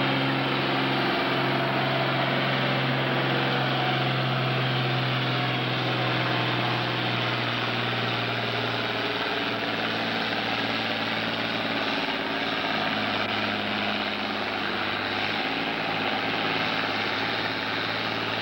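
International Harvester farm tractor's engine running flat out under heavy load as it drags a weight-transfer pulling sled down the track. The steady engine tone weakens somewhat in the second half of the pull.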